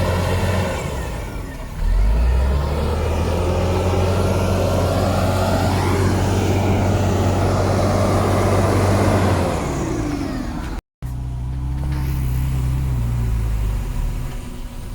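Heavy diesel engines of earthmoving machines working under load. The engine note rises sharply about two seconds in and holds loud, cuts out for an instant about eleven seconds in, then runs on at a steadier, slightly lower note.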